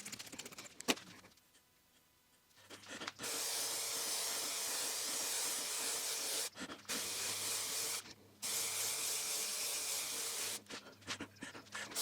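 Aerosol spray adhesive can spraying in hissing bursts: three long sprays of a few seconds each with brief breaks between them, then a few short spurts near the end. A sharp click comes about a second in.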